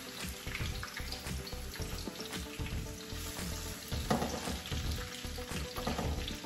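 Sliced onion and sweet peppers sizzling in a frying pan as they are scraped in, with a plastic spatula tapping and clicking against the tub and pan.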